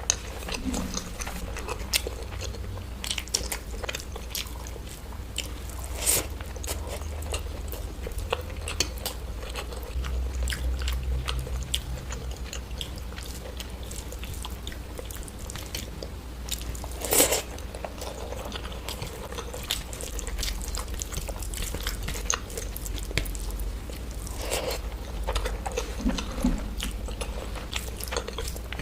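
Close-miked chewing and biting of crunchy food, an irregular run of small crackles and crunches, with one louder crunch a little past halfway.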